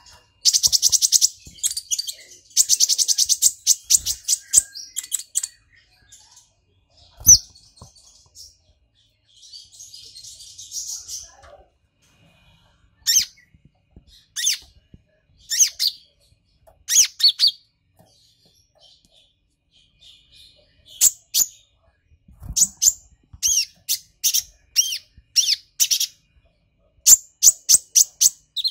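Purple-throated sunbird calling: two fast, buzzy high trills near the start, then sharp high chips, single at first and in quick runs near the end. A few low knocks are heard among the calls.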